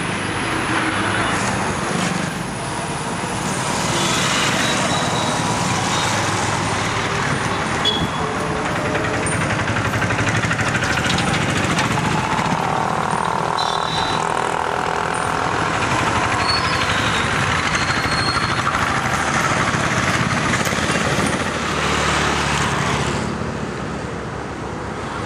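Street traffic noise: a steady wash of passing vehicles on a town road.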